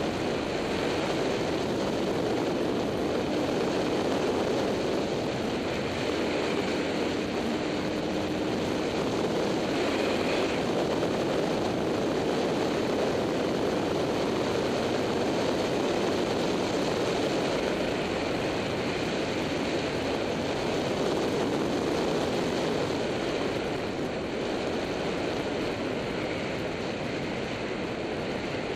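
Motorbike riding at speed: steady engine and road noise mixed with wind rushing over the action camera's microphone.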